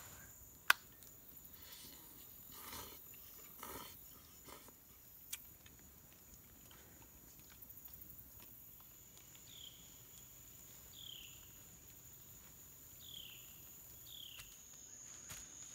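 Faint woodland ambience: a steady high-pitched insect drone, with a bird giving four short falling calls in the second half and a few faint clicks and rustles.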